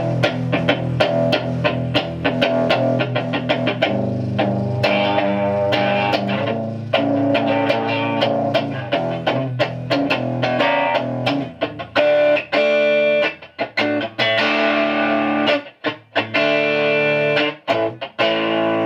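Strat-type electric guitar on its neck pickup, played through a 1971 Watkins Clubman valve amp driven by a single class-A EL84. First a run of quickly picked notes, then from about twelve seconds in, held chords with a few short breaks. The amp is lightly distorting.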